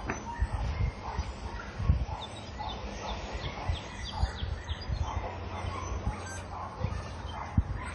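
A man blowing in repeated puffs into a nest of dry grass to fan a char-cloth ember into flame; the breath hits the microphone as irregular low thumps.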